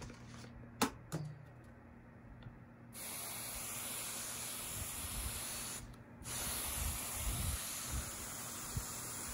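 Hand spray bottle misting water over freshly sown seed-starting pots. After a couple of small knocks, a steady hiss of spray starts about three seconds in, stops briefly near the middle, then resumes.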